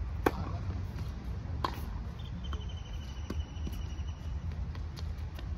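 Tennis serve: the racket strikes the ball with a sharp pop about a quarter second in, followed by a fainter ball hit from the far end of the court about a second and a half later. From about two seconds in, a high, evenly pulsed trill runs for about two seconds over a low, steady rumble.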